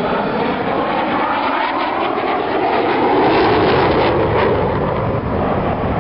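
An airplane flying past at an air show, its engine noise swelling to its loudest a little past halfway, with a sweeping change in pitch as it passes.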